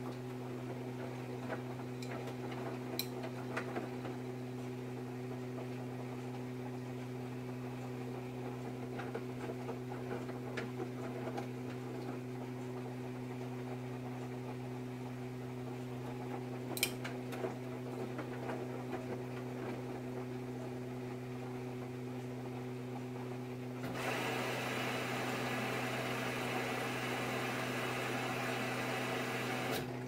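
Samsung front-loading washing machine running a wash, its drum turning the clothes with a steady hum and a few faint knocks. A steady hiss joins in for the last few seconds.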